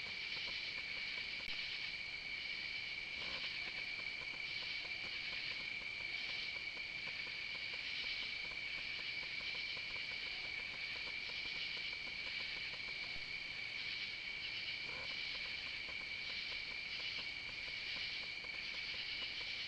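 Night insect chorus of crickets and katydids: a steady high trill, with a higher pulsing chirp layered over it.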